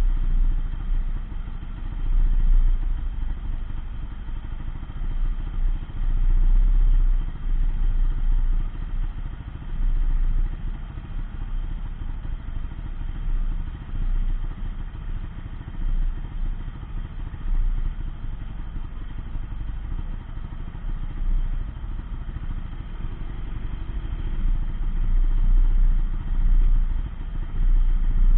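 Engine of a stationary off-road buggy idling, a steady low rumble that swells and fades every second or two.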